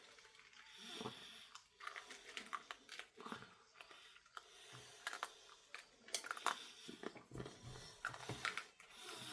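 Irregular rustling, crinkling and small clicks of hands coiling up a hammock ridge light's cord.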